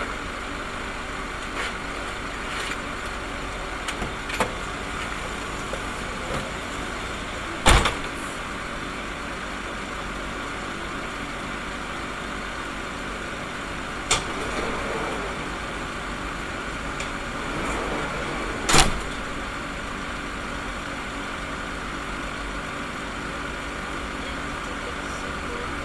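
Steady running hum of a stopped car, heard from inside its cabin. A few sharp knocks cut through it, the loudest about 8 and 19 seconds in.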